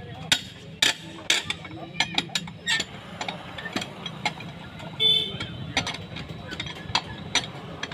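Irregular metallic clinks and knocks of a steel wheel brace working the wheel nuts of a Mahindra Scorpio's wheel as they are undone to take the wheel off. A brief tooting tone sounds about five seconds in.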